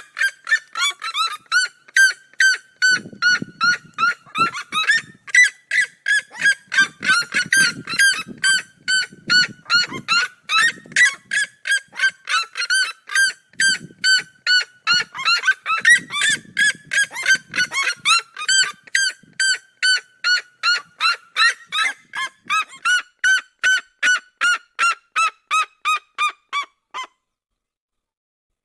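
Red-legged seriema song: a long, fast series of loud, sharp yelping notes, several a second, the pitch sagging slowly. The series stops abruptly near the end. It is plausibly a pair calling in duet.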